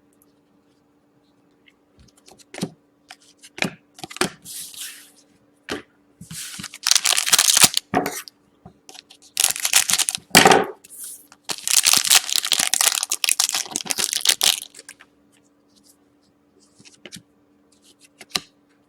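Trading-card pack wrapper being torn open and crinkled in three rustling bursts, with small clicks and taps of cards being handled in between.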